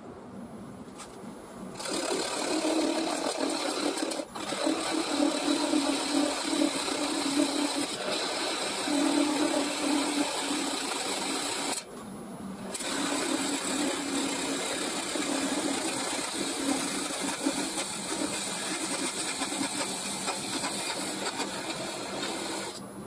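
Wood lathe spinning a mulberry bowl while a hand-held turning tool cuts away the foot, a dense scraping hiss of wood being cut over the lathe's steady hum. The cutting starts about two seconds in, breaks off for a moment around four seconds and for about a second near the middle, and stops just before the end.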